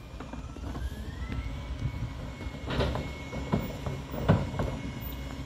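Rear-loader garbage truck's diesel engine running with a low, steady rumble, and several sharp knocks and bangs in the second half as workers handle carts at the hopper.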